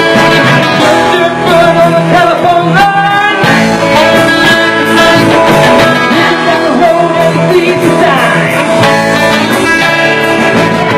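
A band playing a song live, with guitar and a singing voice.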